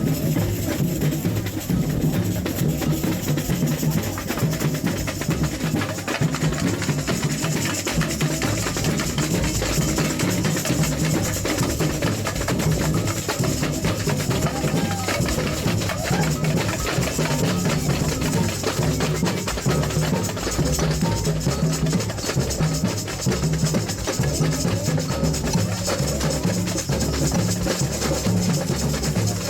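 Samba music with drums and percussion playing a steady, dense rhythm and a strong bass-drum beat.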